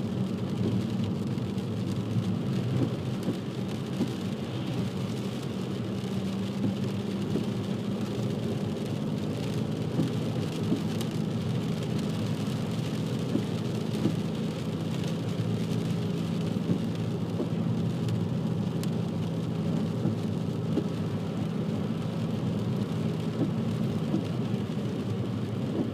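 Car driving on a wet road, heard from inside the cabin: a steady low engine and road hum with the hiss of tyres on wet tarmac.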